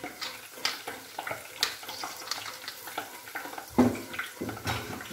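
Thick tomato sauce simmering hard in a steel pot, bubbling and spattering with irregular sharp pops. A louder thump just under four seconds in.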